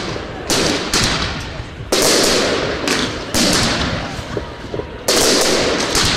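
Fireworks going off: four sharp bangs about every second and a half, each followed by a dense crackle that fades away.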